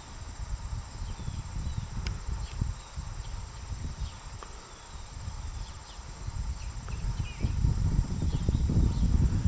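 Summer outdoor ambience: a steady high-pitched insect drone with a few short bird chirps over it, under a gusty low rumble on the microphone that grows heavier near the end.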